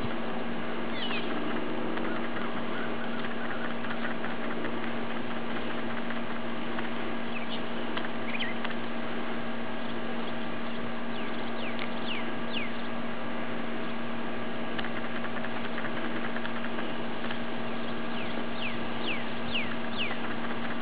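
Outdoor ambience: a steady hum over an even hiss, with short high falling chirps from birds now and then, several in quick succession around the middle and again near the end.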